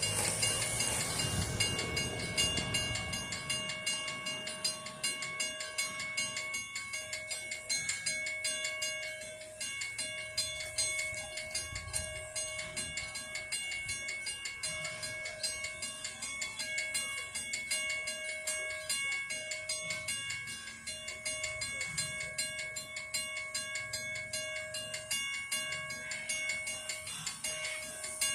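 Level crossing warning bell ringing rapidly and continuously beside the Puffing Billy steam railway, with brief irregular breaks in the ringing. A train is heard loudest in the first couple of seconds.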